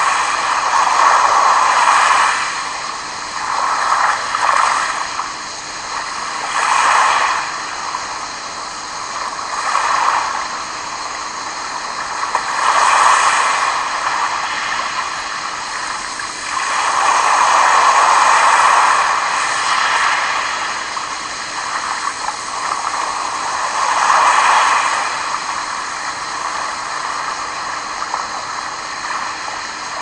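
Small sea waves washing in over a pebble shore and around rocks: a rushing wash that swells and fades every few seconds, the longest about two-thirds of the way through.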